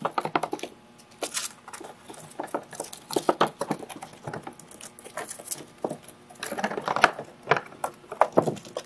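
Hamster scurrying about a cardboard box, its claws scratching and clicking on cardboard and plastic play panels: a run of irregular quick clicks and rustles.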